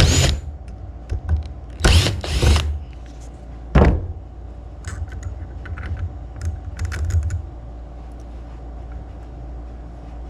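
Knocks and clunks of metal carburetor parts being handled, four loud ones in the first four seconds, then lighter clicks and taps that stop a few seconds before the end.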